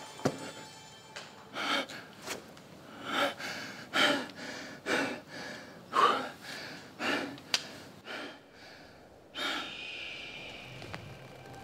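A man gasping and panting heavily, one loud breath about every second. Near the end the breathing stops and a held musical tone comes in.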